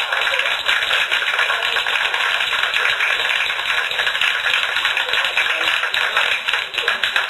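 Live audience applauding and laughing after a punchline.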